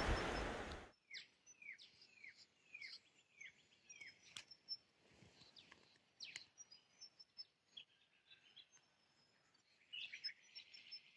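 Wild birds calling in eucalypt bush: a run of about six short downward-sweeping chirps, repeated roughly every half second about a second in, with faint high twitters, a few sharp clicks, and a burst of chatter near the end. A steady rushing noise cuts off suddenly in the first second.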